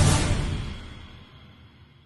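Background music fading out, dying away over about a second and a half.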